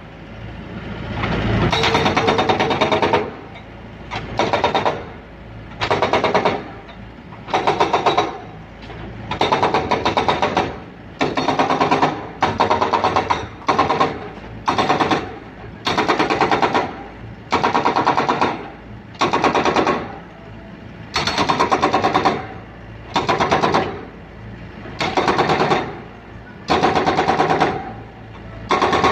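Hydraulic breaker on a Doosan mini excavator hammering in short bursts of rapid blows, about one burst every second and a half, knocking caked paint crust off steel support rails.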